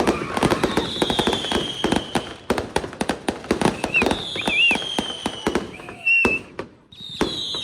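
Fireworks display: a dense run of rapid crackling bangs, with long high whistles that drop slightly in pitch. The barrage thins briefly near the end, then more bangs and a whistle follow.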